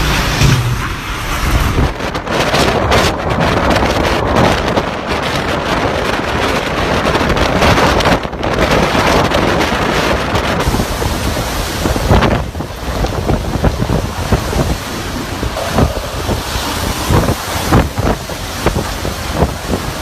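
Strong typhoon wind gusting and buffeting the microphone, a loud continuous rush with frequent sharp blasts.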